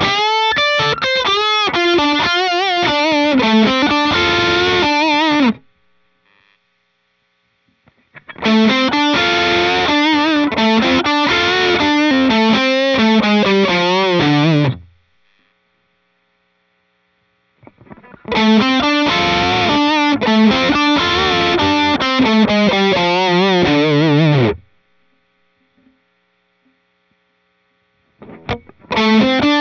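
Overdriven electric guitar through an OCD-type overdrive, playing the same short phrase several times, each run lasting about six seconds with a short silent gap between. Each run opens with wavering, bent notes and then steps down through a descending line.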